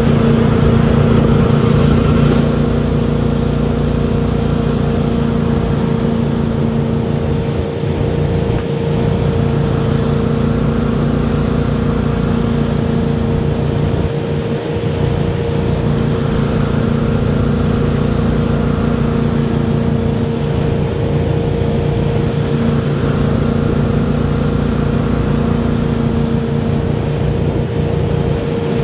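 Ski tow boat's engine running steadily at speed, a constant drone with the rush of water and wake underneath.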